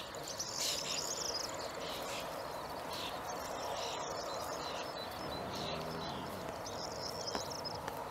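Meadow ambience: small birds chirping and trilling in short phrases over a steady background hiss.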